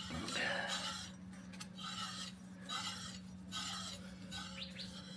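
Rasping strokes of hand work on a metal part, repeated about once a second, over a steady low hum. A few short bird chirps come in near the end.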